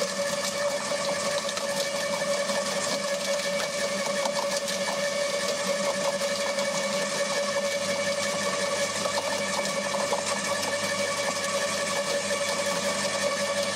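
A small motor-driven machine running steadily, chopping cane, with a constant whine and a fast, fine chatter throughout.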